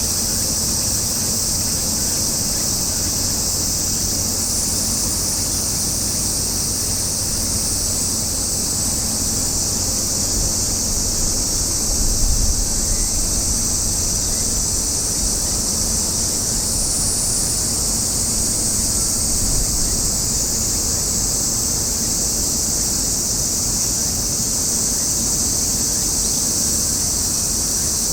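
Steady high-pitched chorus of cicadas over a low outdoor rumble of wind, with one brief low bump about twelve seconds in.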